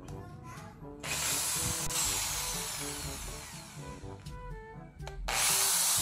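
Electric drill boring through a thin plastic modem housing in two runs: the first starts suddenly about a second in and fades over some four seconds, and the second starts sharply just after five seconds. Background music with a tune plays throughout.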